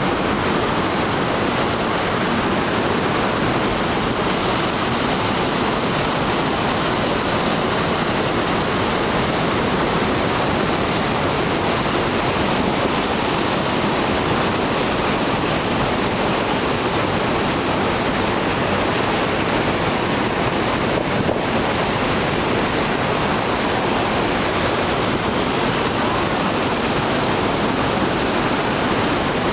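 Iguazú Falls: a massive waterfall pouring down, a loud, steady, unbroken rush of falling water.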